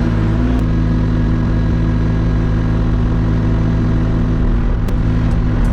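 Hauyee HY35C mini excavator's engine running at a steady speed, with a couple of light clicks near the end.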